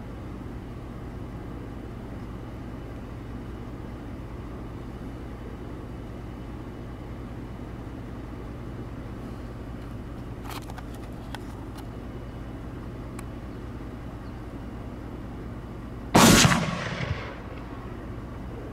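A single rifle shot near the end, its report ringing off over about a second, above a steady low hum.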